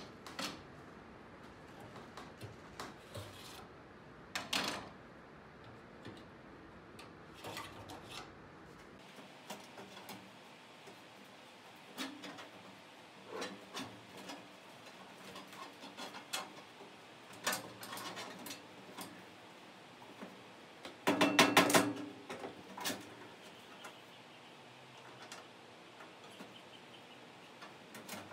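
Sheet-metal parts of an old Craftsman steel tool chest being handled and slid in and out: scattered metal clanks, knocks and scrapes, with a quick rattling clatter about three quarters of the way through, the loudest sound.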